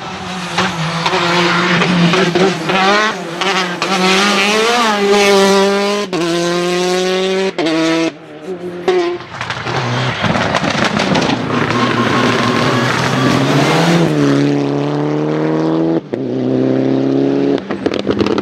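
Rally cars at full throttle on a tarmac stage, one after another: engines revving hard, the pitch climbing through each gear and falling back at every upshift, with the note breaking off abruptly several times as one car gives way to the next.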